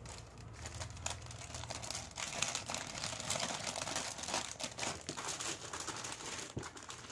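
Clear plastic jewellery packet crinkling as it is handled, in irregular rustles and small crackles.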